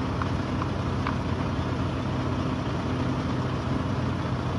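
A truck's diesel engine running steadily with the throttle held up, to push exhaust through the system while it is checked for a leak.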